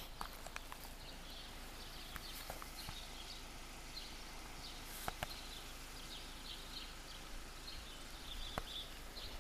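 Faint outdoor village ambience with small birds chirping on and off throughout. A few scattered light clicks or taps stand out, the clearest about five seconds in.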